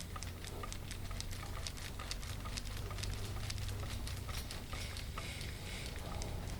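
Hands massaging bare skin: a quick, uneven patter of small clicks and rubbing over a low steady hum.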